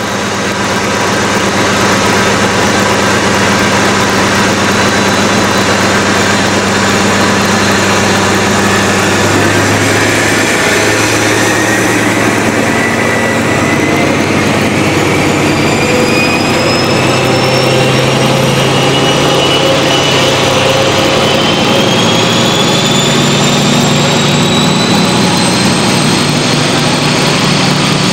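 HST Class 43 diesel power car under power, its engine running loud and steady, with a high turbocharger whistle that climbs slowly in pitch as the engine opens up to pull the train away.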